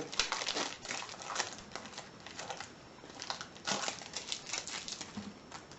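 Adhesive tape being picked at and peeled off a padlock's packaging: an irregular run of scratchy crackles and ticks.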